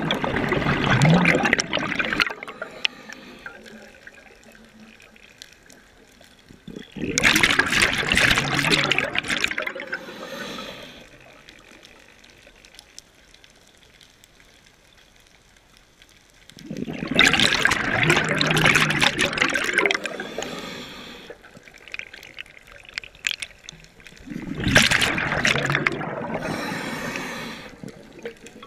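Scuba diver's regulator exhausting exhaled breath as bubbles, a bubbling gush that comes in four bursts of two to three seconds each, several seconds apart, with quiet stretches between breaths.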